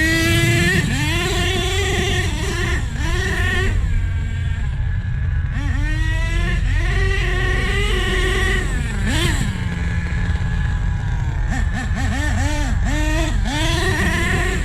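Two-stroke nitro glow engine of an HPI Savage RC monster truck revving up and down as the truck is driven on paddle tires, its pitch rising and falling with the throttle. Near the end comes a quick series of short throttle blips.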